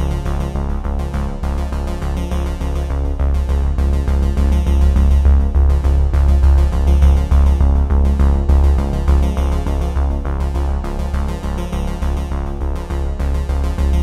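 Background music: an electronic synthesizer track with heavy bass and a steady beat.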